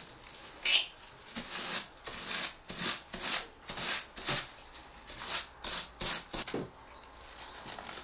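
Raffia strands of a tuna lure skirt being combed out with repeated scratchy strokes, about two a second, easing off near the end. The combing frizzes the raffia into fine strands.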